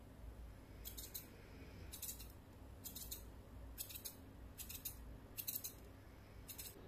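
Grooming scissors snipping the fur around a Maltese's front paw: faint, quick clusters of crisp snips, roughly once a second.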